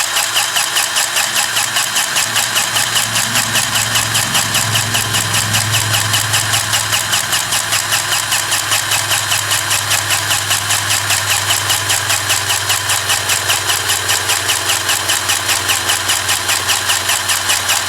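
Lincoln 20-volt cordless grease gun running, its motor-driven pump pulsing about five strokes a second as it pushes grease into a fitting.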